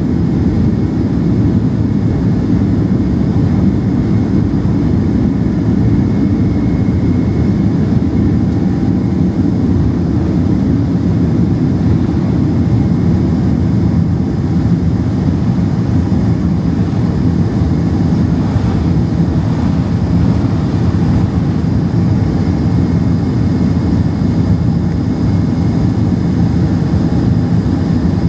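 Boeing 767-300ER's twin jet engines at takeoff thrust, heard from inside the cabin: a loud, steady, low-pitched engine noise through the end of the takeoff roll, liftoff and the initial climb.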